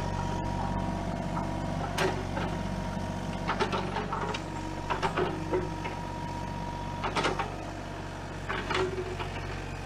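Kubota mini excavator working: its diesel engine runs steadily under a thin, even whine that stops about seven seconds in. Scattered knocks and clanks come from the bucket digging out brush and a stump.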